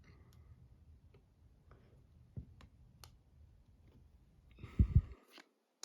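Paper trading cards being handled and flipped: soft scattered clicks, then a louder rustle with two low thumps about five seconds in.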